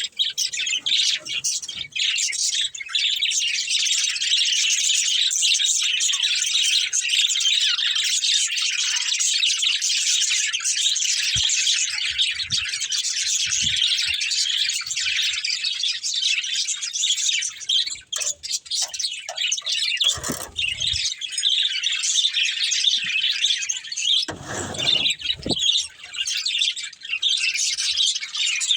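A flock of budgerigars chirping and chattering without a break, in a dense, high twittering. There are a few brief low thumps partway through.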